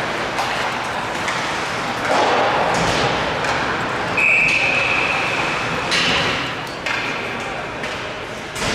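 Spectators' voices and chatter in a large echoing hall, with a steady high tone lasting under two seconds around the middle and a few sharp knocks, the loudest near the end.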